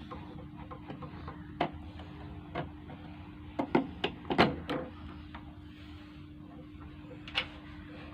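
Irregular small clicks and knocks of wire spade connectors being pulled off a microwave oven's high-voltage capacitor and diode terminals, with a quick cluster in the middle and one more near the end, over a steady low hum.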